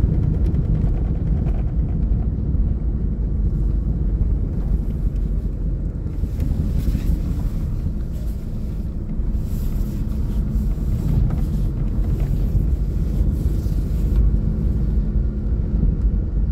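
Kia Carnival's diesel engine pulling under load up a ferry loading ramp, a steady low rumble heard from inside the cabin, with no sharp knocks or bangs.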